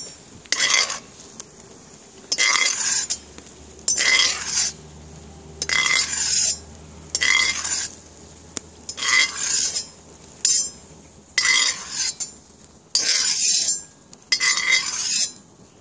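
A metal utensil scraping against the inside of a cast-iron kazan, about ten short scrapes spaced every second and a half or so, as fried onion is scooped out of the oil during seasoning.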